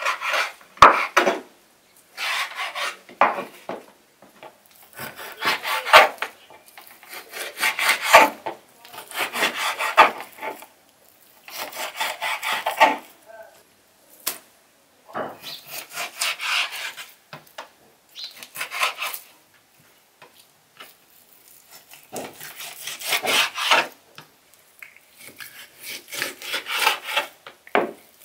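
Large kitchen knife slicing raw beef into chunks on a wooden cutting board: repeated bursts of sawing strokes, each a second or two long, with short pauses between them and an occasional knock of the blade on the board.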